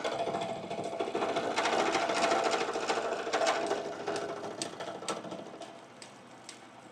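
Milling machine running with a fast, even mechanical rattle that fades away over the second half, then a few light ticks. The end mill is not touching the aluminum workpiece because the setup on the rotary table has shifted.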